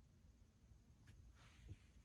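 Near silence: faint room tone, with a faint click about a second in and a soft brief rustle shortly after.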